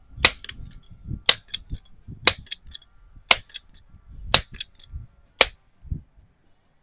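Vintage Rochester multi-pump air rifle being pumped: six sharp clacks about a second apart, one at the end of each stroke of the pump lever, with a low rumble between strokes as the gun is charged for the next shot.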